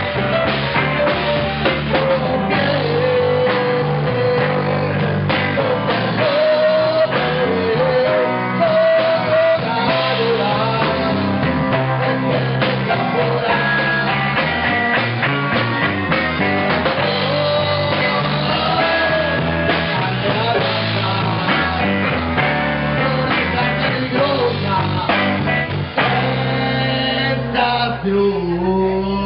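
Blues-rock song with guitar, in a passage without transcribed lyrics; the sound thins briefly near the end.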